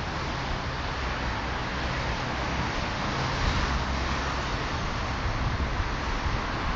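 Steady outdoor street noise: a continuous low rumble and hiss with no distinct events, like passing traffic.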